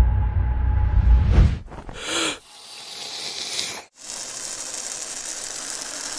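Cartoon sound effects: a heavy low rumble for about a second and a half, then a short whoosh and a long steady hiss, broken once briefly near the middle.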